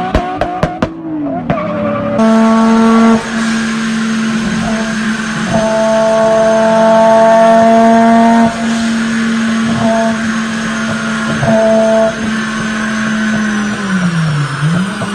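A few sharp exhaust pops from a car with anti-lag, then a car engine held at high, steady revs for about twelve seconds over a rushing noise, the revs dipping briefly and picking back up near the end.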